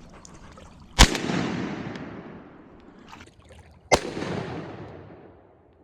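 Two shotgun shots about three seconds apart, each followed by a long rolling echo that fades over a second and a half.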